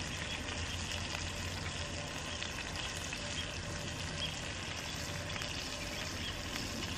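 Fish frying on the cooktop of a homemade gas-bottle wood burner: a steady sizzle with fine crackles and small pops throughout.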